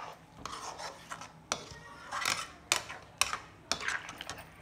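Flat metal spatula stirring a watery curry in a metal kadhai, scraping along the pan and knocking against it with about six sharp clinks.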